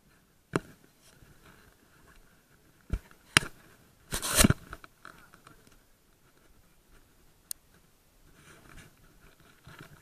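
Sharp knocks and a short scraping clatter from a landing net's pole being handled against an aluminium boat's rail: three knocks in the first few seconds, the loudest clatter about four seconds in, and a single click later on.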